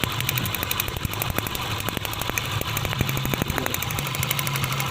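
Car engine idling with a fast, even ticking clatter over a low steady hum.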